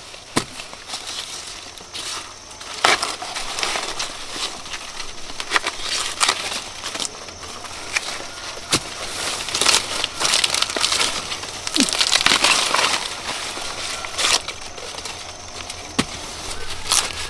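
Ears of corn snapped off the stalks by hand: irregular sharp cracks amid the swishing and rustling of dry corn leaves and husks.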